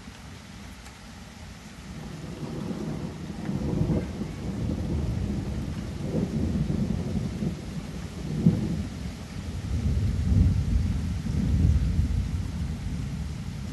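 Thunderstorm: steady rain hiss with low, rolling thunder that builds about two seconds in and swells again and again.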